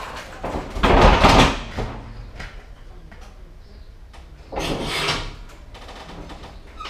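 Rear door of an empty truck trailer being swung shut, heard from inside the load space: a loud clattering bang about a second in, then a second, shorter clatter about four and a half seconds in.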